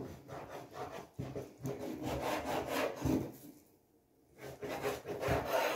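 A kitchen knife sawing back and forth through a raw salmon fillet and scraping on a wooden cutting board, in repeated strokes. The cutting stops for about a second just past the middle, then starts again.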